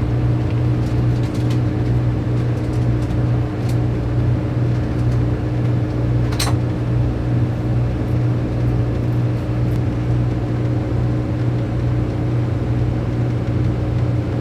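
Motorhome engine running at idle, heard from inside the cab as a steady low hum. There is one short sharp click about six seconds in.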